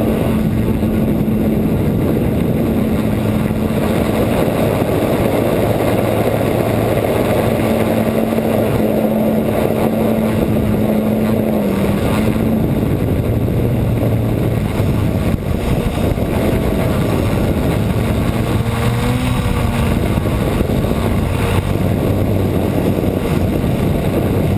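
Motor and propeller of a camera-carrying model aircraft in flight, heard from the onboard camera as a loud, steady drone over rushing air. Its pitch steps down about twelve seconds in and shifts a little afterwards.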